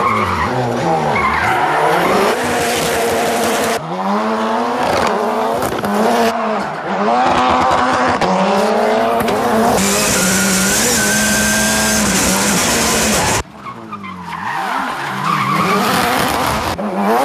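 Ford Fiesta rally car's engine revving hard, its pitch sweeping up and down through gear changes and throttle blips, with tyres skidding and squealing as the car slides sideways. The tyre squeal is loudest from about ten seconds in; near the end the sound drops suddenly and the engine builds up again.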